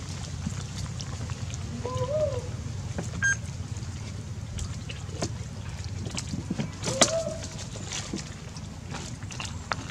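Young macaques feeding from a hand: many small clicks and rustles over a steady low rumble, with two short squeaky calls that rise and fall, about two seconds in and again about seven seconds in.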